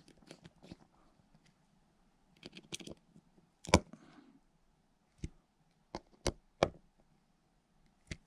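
Small screwdriver and metal reel parts clicking and tapping as a screw is driven into a Daiwa Tatula CT baitcasting reel's side plate: a scattering of sharp clicks, the loudest a little under four seconds in, then four more spread over the next three seconds.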